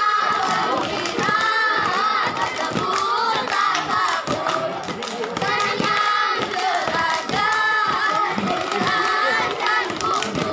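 A group of children singing a chant in unison, with hand claps and thumps of stamping feet keeping time.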